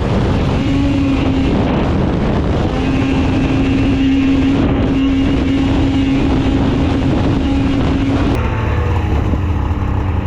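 Snowmobile engine running at a steady high speed with a held whine, mixed with wind noise. About eight seconds in the whine stops abruptly and the engine sound changes.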